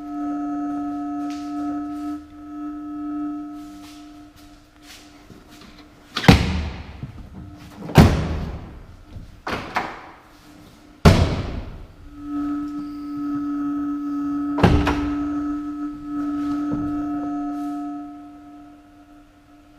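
Four heavy thunks of the pickup truck's doors or panels being shut. A steady electronic tone, like a door-open chime, sounds at the start and again in the later part.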